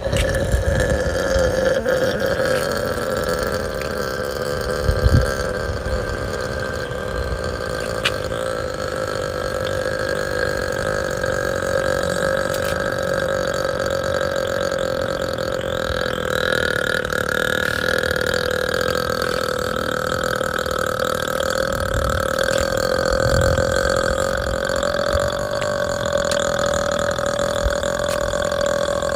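A woman's single deliberate long burp, held unbroken at a steady pitch and drawn out for as long as she can.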